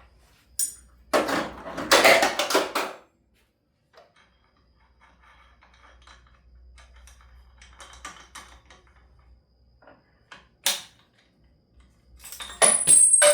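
Steel puller parts and hand tools clattering and clinking as the crooked jaw puller is taken off and reset. There is a loud clatter about a second in lasting some two seconds, light scattered clicks, a sharp clink near ten seconds, and another clatter near the end with a brief high metallic ring.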